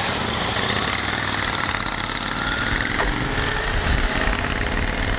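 Motorcycle engines running steadily at low revs as the bikes pull away slowly.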